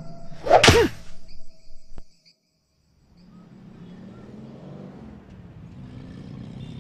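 A loud, sudden burst with a swooping pitch about half a second in, then a moment of silence. After that comes the low, steady hum of a town street with traffic.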